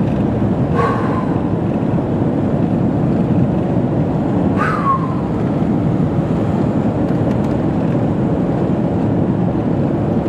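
Steady road and tyre noise inside a moving car, with two brief sounds falling in pitch, one about a second in and another about five seconds in.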